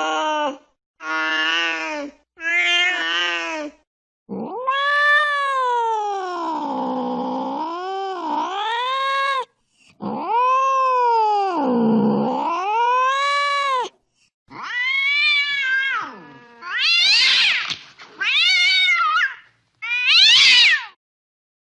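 Angry cats yowling and caterwauling in a series of separate calls. First come two short ones, then two long wavering yowls of about five and four seconds that dip and rise in pitch. Near the end come shorter calls and three brief, higher yowls.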